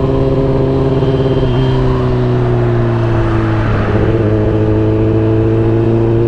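Kawasaki ZX-10R inline-four with a loud exhaust running under way. Its note breaks briefly about a second and a half in and again near four seconds in, sags in pitch between, then climbs steadily.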